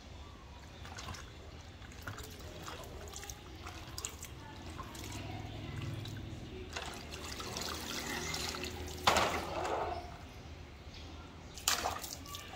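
Water sloshing and splashing in a plastic basin as plastic toy trucks are pushed and dunked through it, with a garden hose trickling in. The biggest splash comes about nine seconds in, and a few more follow near the end.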